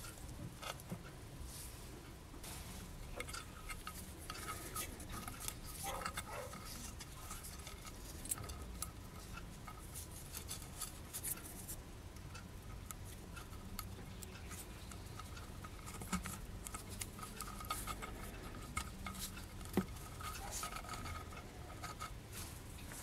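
Small brass parts of a miniature windlass clicking and scraping against each other and the bench as they are fitted together by hand, with faint scattered ticks and taps throughout.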